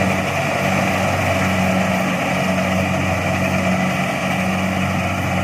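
Kubota DC-70 Plus combine harvester running steadily as it harvests rice: a constant diesel-engine drone with a low, even hum and the noise of the threshing machinery.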